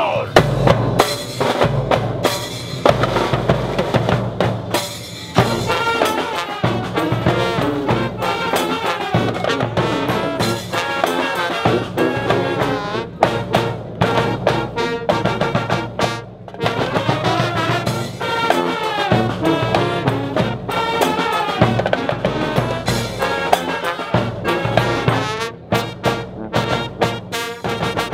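A brass band playing with horns and drums.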